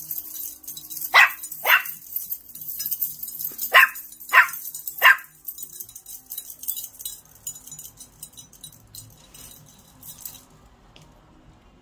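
Small puppy barking: five short, sharp barks, two about a second in and three more in quick succession a few seconds later.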